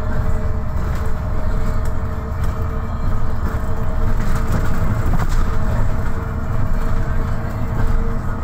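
Inside a moving MAN NL263 diesel city bus: a steady low rumble of engine and tyres on the road with a held whine from the drivetrain. Scattered rattles and clicks of the bus's fittings are busiest in the middle.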